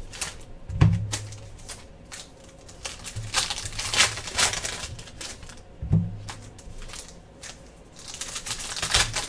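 Foil wrappers of Panini Prizm No Huddle football card packs crinkling and tearing as the packs are ripped open by hand, in a run of crisp irregular rustles. Dull thumps of the packs being handled come about a second in and again about six seconds in.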